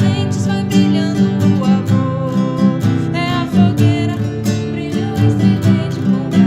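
A song with strummed acoustic guitar in a steady rhythm and a voice singing a held, wavering melody over it.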